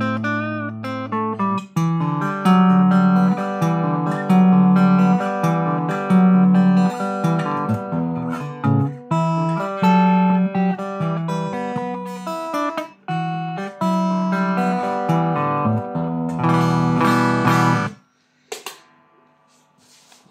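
Flying V-style electric guitar with Ibanez QM humbucker pickups, played through an amp: single-note lines and chords. The playing stops abruptly about two seconds before the end, and a few faint clicks follow.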